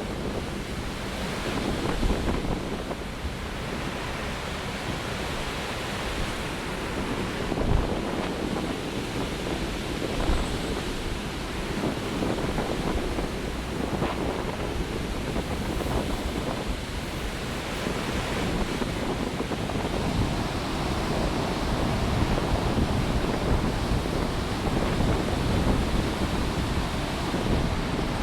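Heavy winter-storm surf breaking and rushing in without a pause, with wind buffeting the microphone in short low thumps.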